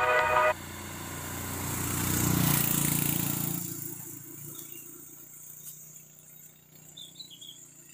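Background music cuts off about half a second in. Then a passing motor vehicle swells to a peak and fades away over a few seconds, leaving faint bird chirps near the end.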